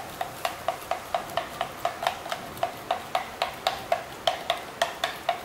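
A long bar spoon stirring a white powder into liquid in a tall glass jug, clinking against the glass about four to five times a second, each clink with a short ring.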